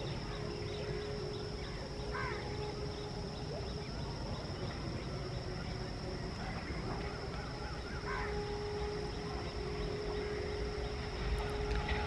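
Low, steady rumble of an electric-hauled express train still some distance away and approaching, with a steady hum over it. Two short bird-like calls are heard, about two seconds in and again about eight seconds in.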